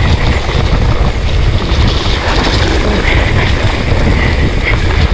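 Wind buffeting the camera microphone over the rumble and rattle of a mountain bike rolling fast down a rough, muddy trail.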